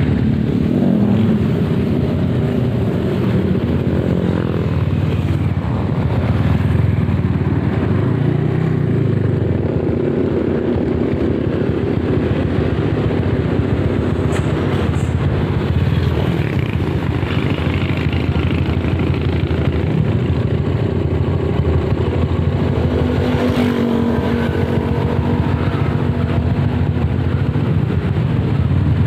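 Honda CB motorcycle engine running steadily while riding, its pitch rising and falling a few times with the throttle.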